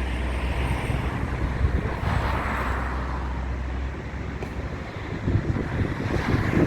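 Road traffic going past, with a steady low engine drone that cuts out about four seconds in. Wind buffets the microphone in gusts near the end.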